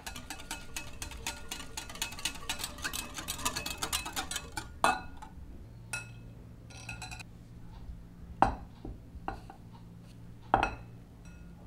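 Wire whisk beating runny egg, milk and oil batter in a glass bowl, its wires clicking rapidly against the glass for about five seconds. A metal mesh sieve is then set on the bowl with a ringing clink, followed by a few sharp clinks of metal and glass as flour is tipped into it.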